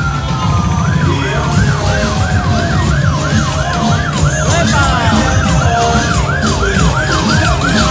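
Emergency vehicle siren: a falling wail in the first second, then a fast yelp rising and falling about three times a second.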